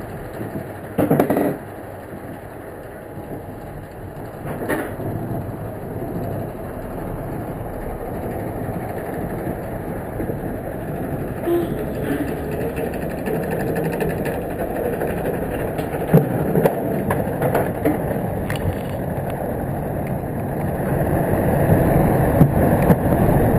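Zierer family roller coaster train rolling on its steel track and then climbing the chain lift hill, the lift chain rattling steadily under the train and growing louder toward the end. A loud knock about a second in.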